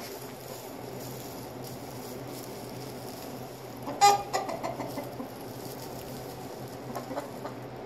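Chicken giving one sudden loud squawk about four seconds in, followed by a run of quicker, fading clucks, and a few more clucks near the end, over a steady low hum.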